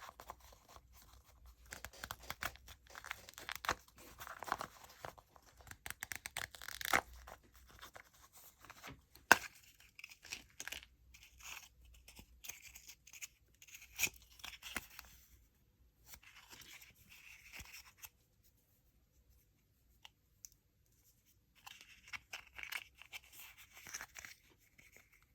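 Candy wrappers being torn open and crinkled by hand, in uneven bursts of crackling rustle with a sharp snap about nine seconds in. There is a quiet pause of a few seconds past the middle.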